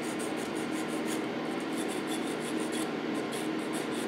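Needle file rasping back and forth over solder and lead, shaping a repaired gun barrel on a lead toy figure, in quick, steady strokes.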